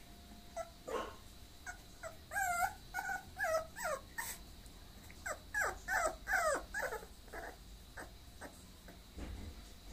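Bulloxer puppy (bulldog and boxer mix) whimpering: two runs of short, high whines that bend in pitch, the first starting about two seconds in and the second about five seconds in.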